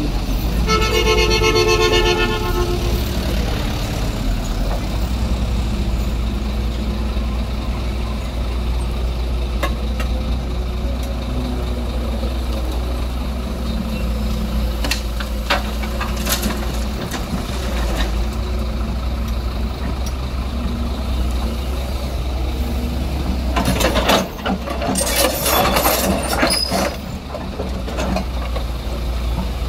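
Doosan crawler excavator's diesel engine running steadily under load as it digs and swings. A pitched, horn-like tone sounds for about two seconds near the start. Later there is a burst of clattering and knocking as the bucket works broken asphalt and soil.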